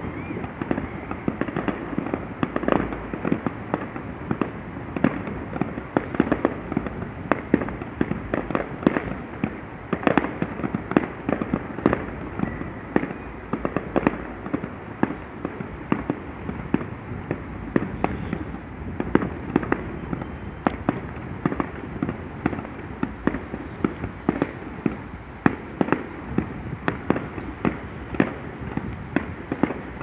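Fireworks display: a dense, unbroken run of bangs and crackles, several a second.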